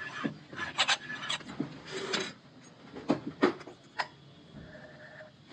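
Hand-turned valve seat cutter scraping the valve seat of an engine cylinder head in several short strokes, with a sharp click about four seconds in.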